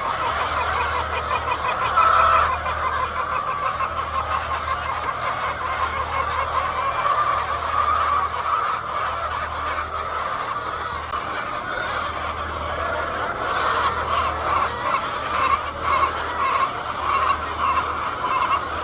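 A flock of laying hens clucking and calling together in a dense, continuous chatter, with a low hum underneath.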